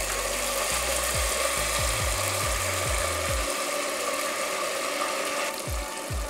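Coconut milk poured into a pressure cooker onto pork loin browned in hot coconut oil, hissing and sizzling as it hits the hot pan; the hiss eases about five and a half seconds in. Background music with a steady bass beat plays underneath.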